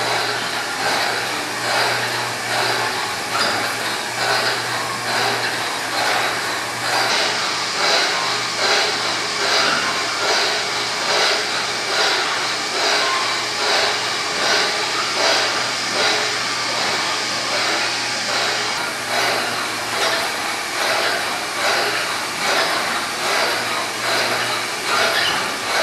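Historic Hamilton pumping-station beam engine turning over under electric motor drive: a steady rushing mechanical noise with a low hum underneath, pulsing about once a second.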